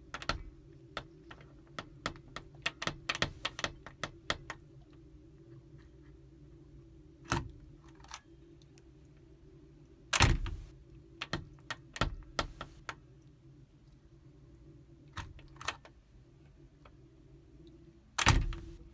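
Metal door latch clicking and rattling as it is worked by hand on a wooden door, with a few louder knocks of the door, loudest about ten seconds in and again near the end. A low steady hum runs underneath.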